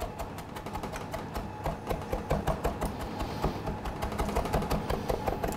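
Chef's knife rapidly mincing fresh coriander on a plastic cutting board: a quick, steady run of knife taps on the board, chopping the herbs very fine.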